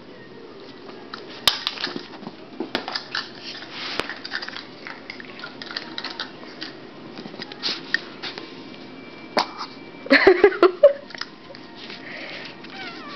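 Small dog playing on carpet: soft scuffling and scattered clicks and taps from the play and the handheld camera, with a brief louder voice-like sound about ten seconds in.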